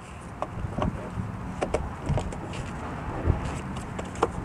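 Scattered plastic clicks and knocks as bulb sockets are twisted and snapped into the back of a new Toyota Camry headlight assembly, with a duller thump about three seconds in, over a steady low hum.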